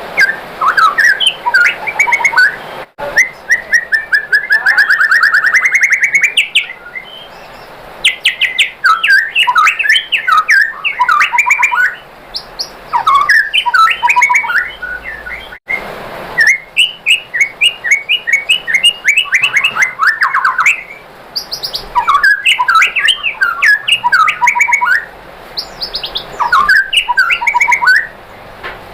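White-rumped shama singing loudly: about six phrases of fast trills and varied whistled notes, each a few seconds long, separated by short pauses. One early phrase is a quick rising trill.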